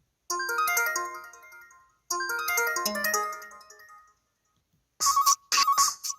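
Mobile phone ringtones from a Samsung SPH-W7100: two quick runs of bright bell-like notes, each fading out. After about a second of silence, a different ringtone with a beat and sharp percussive hits starts near the end.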